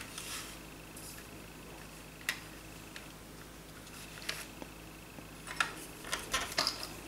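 Hard plastic toy Boeing 777 airliner being handled and turned over in the hands: scattered light clicks and taps, with a quick run of clicks near the end.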